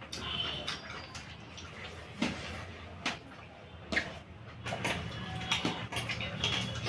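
Eating by hand: wet chewing and mouth smacks, with fingers mixing rice and egg on steel plates, making an irregular string of short clicks and smacks.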